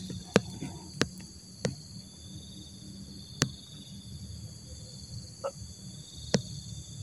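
Steady high-pitched chirring of forest insects, with about six short sharp clicks at uneven intervals.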